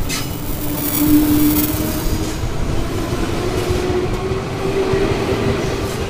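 205 series electric commuter train passing close by, a steady rumble of wheels on rail under a motor whine that rises slowly in pitch. There is one sharp click right at the start.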